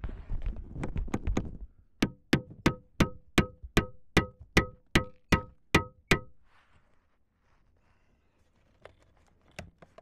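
A steel hammer beats on the snowblower's driveshaft yoke at the shear-pin joint, which has frozen together. First comes some scraping and a few quick knocks, then about a dozen ringing metal-on-metal blows, about three a second, stopping a little after halfway through.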